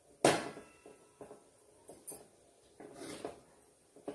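Short rustles and scrapes of a damp cotton cloth being peeled and lifted off a steel idli plate with steamed idiyappam on it. The loudest comes a little after the start, with a few smaller ones around one, two and three seconds in.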